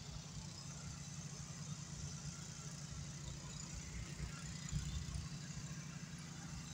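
A distant engine running with a steady low rumble.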